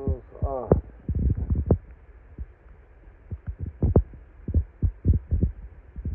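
Irregular dull knocks and thumps, coming in short clusters of a few at a time.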